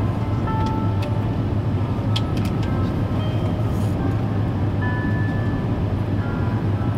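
Steady cabin rumble inside an Airbus A350-900 airliner: engine and airflow noise with a strong low hum and no change in level, with faint music over it.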